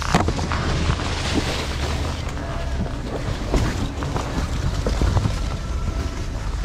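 Low steady rumble of wind on the microphone, with leaves rustling and the short knocks of apples being picked and dropped into a picking bucket.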